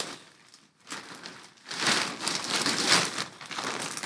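Plastic bag crinkling and rustling as it is handled and pulled open, faint at first and louder from about two seconds in.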